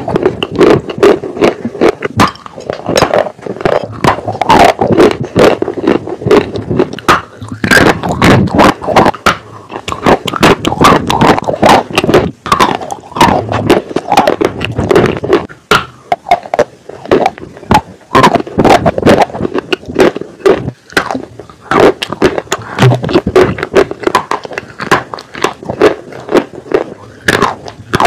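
Chunks of dry Turkestan white clay being bitten and chewed close to the microphone: a dense, continuous run of sharp crunches and cracks.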